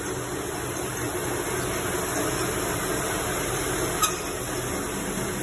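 Heidelberg paper folding machine running with a steady mechanical hum and air hiss, with a single sharp click about four seconds in.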